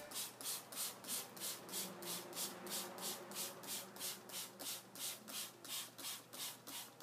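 Plastic trigger spray bottle pumped over and over, spraying water onto a heap of wet sand. It makes faint, quick hissing squirts, about three a second.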